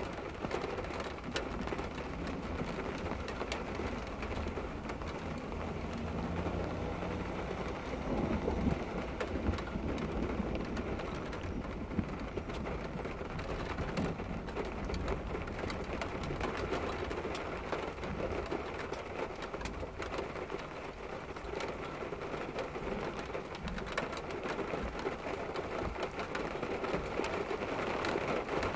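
Steady heavy rain heard from indoors, with drops ticking on the window glass.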